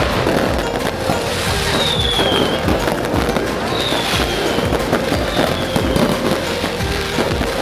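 Dense, continuous fireworks and firecrackers: rapid bangs and crackling with no let-up, with three short falling whistles about two, four and five and a half seconds in.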